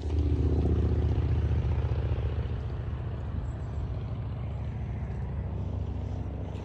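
A motor engine droning with a steady low hum, loudest in the first couple of seconds and then slowly fading.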